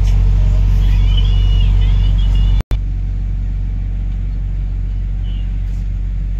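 Steady low rumble of a double-decker bus's engine and road noise heard from on board, with a brief high wavering squeal about a second in. The sound cuts out for an instant about two and a half seconds in and resumes slightly quieter.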